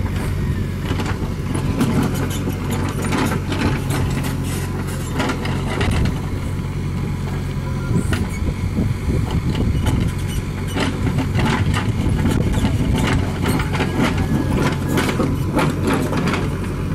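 JCB 3DX backhoe loader's diesel engine running steadily while working, with many sharp metallic clanks and knocks over it.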